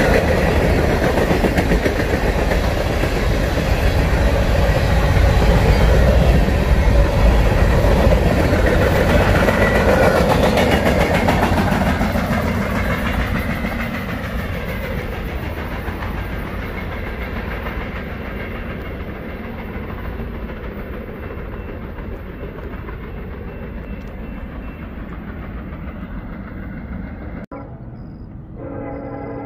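Freight cars of a Union Pacific manifest train, tank cars among them, rolling past on steel rails with steady wheel-on-rail noise. The noise is loudest at first and fades over the second half as the train moves away. Just before the end, after a cut, a locomotive horn starts to sound.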